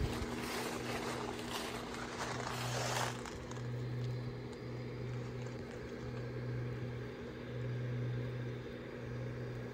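Steady low hum of the Gemmy airblown inflatable's electric blower fan running and keeping it inflated, swelling and fading slightly every second or two. A broad hiss over it stops abruptly about three seconds in.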